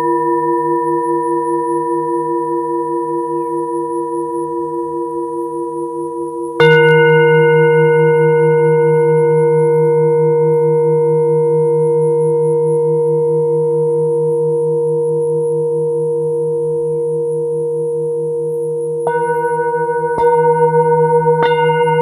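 Hand-held Himalayan singing bowl ringing with a steady, wavering hum. It is struck with a mallet about a third of the way in and rings on, slowly fading, then is struck three more times in quicker succession near the end.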